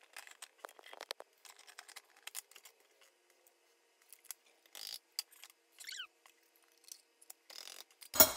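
Handheld can opener cranked around the rim of a bean can, a quick irregular run of clicks as the cutting wheel turns, thinning out after about three seconds. At the very end comes a louder thump as the beans drop from the can into the slow cooker.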